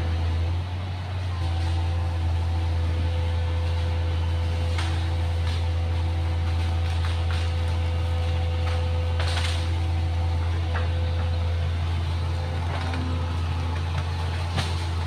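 Excavator's diesel engine running steadily, with a few faint knocks over it.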